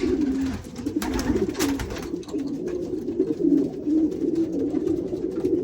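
Several racing pigeon cock birds cooing continuously, their calls overlapping, with a couple of sharp clicks about a second in.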